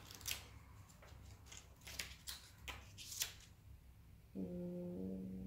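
Faint crisp clicks and rustles of paper being handled, about seven over three seconds. Near the end, a woman's flat, held 'mmm' lasting about a second.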